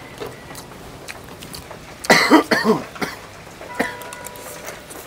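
A man coughing, about three quick coughs in a row about two seconds in.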